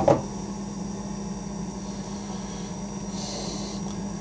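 Steady low hum of room noise, with a couple of sharp knocks at the very start and a brief soft rustle about three seconds in as hands take hold of a plastic soap pump bottle.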